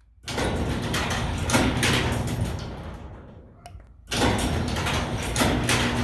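Garage door opener running with the door moving on its track, a steady motor hum under rattling. It runs for about three seconds, dies away, and starts again about a second later.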